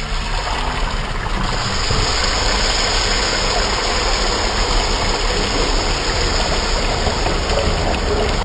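Water pouring in a steady stream into a stainless-steel bowl of idli rice, filling it to soak the rice.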